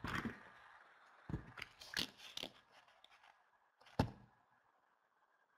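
A few faint clicks and knocks, the sharpest and loudest about four seconds in, over a little hiss at the start.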